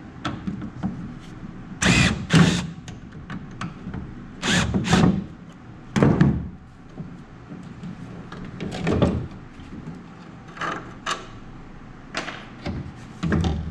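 Hand-tool work on a pickup truck: an irregular string of about ten short knocks, clunks and scrapes, the loudest about two seconds in.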